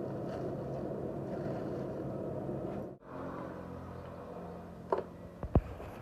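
An engine running steadily. It breaks off abruptly about three seconds in and carries on quieter, with a few sharp metallic knocks near the end.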